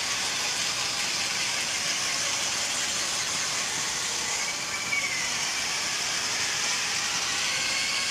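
Small electric gear motors of a four-wheel mecanum-wheel robot whining steadily as it drives over carpet, with a brief rise and fall in pitch about four to five seconds in as the motor speed changes.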